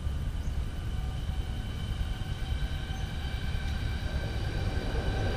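A train passing: a steady low rumble with several high steady whining tones, growing a little louder toward the end.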